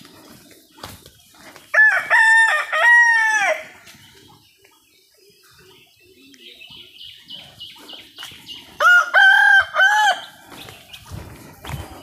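Rooster crowing twice, about seven seconds apart, each crow a loud broken call lasting about a second and a half.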